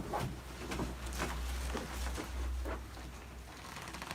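Soft rustling and a few light knocks of a patient shifting position on a padded chiropractic table, over a low steady hum.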